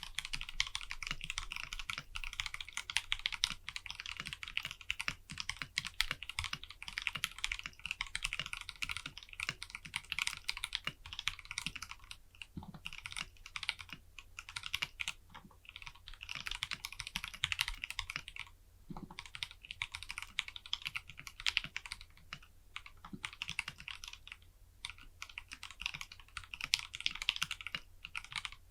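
Anne Pro 2 60% mechanical keyboard being typed on quickly and continuously, a dense run of key clicks with a few short pauses.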